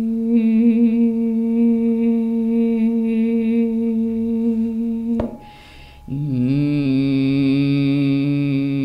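A woman hums sustained tones along with planetary tuning forks held at her ears. One long steady hummed note gives way about five seconds in to a click and an in-breath, then a lower hummed note that slides upward near the end.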